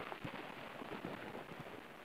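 Eurasian eagle owl feeding on its prey, making faint, irregular crackling and tearing ticks as it pulls at the carcass.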